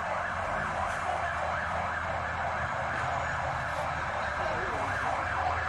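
Siren sounding steadily, as from emergency vehicles arriving at a car fire.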